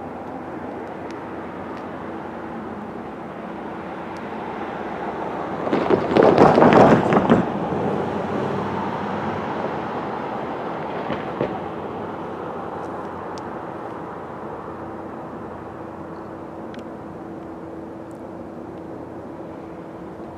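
Two GE ES40DC diesel-electric locomotives leading an approaching intermodal train, running with a steady hum. About six seconds in, a loud, rough burst of noise lasts about a second and a half, then the sound slowly eases.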